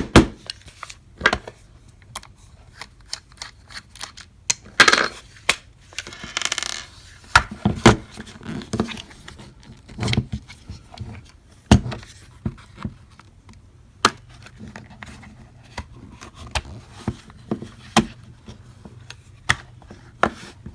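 Irregular clicks, taps and knocks of hard plastic parts and small tools being handled while a cordless electric staple gun's housing is taken apart, with two longer scraping sounds about five and seven seconds in.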